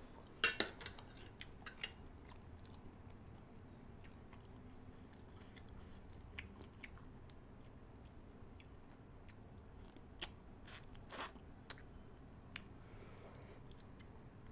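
Eating sounds: scattered sharp clicks and crunches of pickled crab and shrimp shell being pulled apart and chewed, loudest in a cluster about half a second in and again about eleven seconds in.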